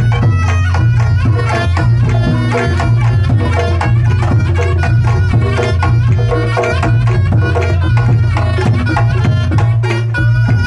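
Reog Ponorogo gamelan playing a koplo-style rhythm: fast, busy kendang drumming over steady strokes on pot gongs and a large hanging gong, with the reedy slompret carrying a wavering melody on top.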